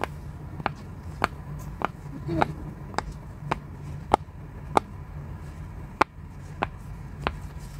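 Silicone pop-it fidget toy, its bubbles pushed in one at a time with a thin stick, giving about a dozen short, crisp pops at an even pace of a little under two a second.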